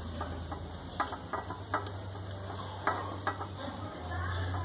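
Scattered light metallic clicks and taps as a bolt is fitted by hand into an engine mount bracket, over a steady low hum.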